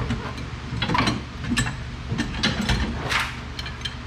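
Metal hand tools clicking and clanking irregularly against car suspension parts during rear strut work, with a few sharper metallic knocks.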